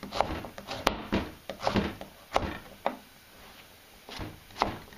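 Kitchen knife cutting through firm Hokkaido pumpkin and knocking on a plastic cutting board: irregular sharp knocks about one to two a second, with a short quieter pause a little past the middle.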